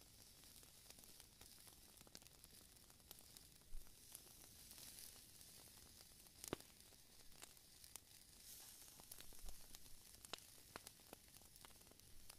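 Faint sizzling of meat skewers grilling on a wire grate over a camp stove fire, with scattered small pops and crackles, two of them sharper about four and six and a half seconds in.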